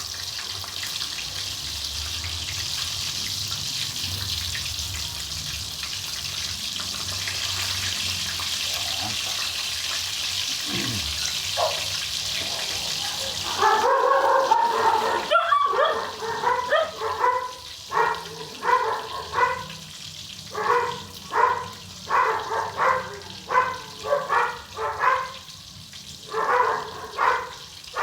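A steady hiss for about the first half, then a dog barking over and over, about once a second, louder than the hiss, through the rest.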